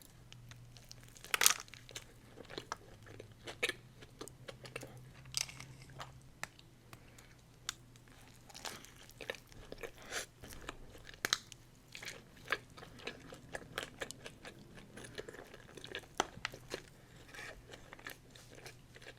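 Close-up crunching and chewing of chillies: irregular crisp bites and crackles every second or so, the loudest about a second and a half in.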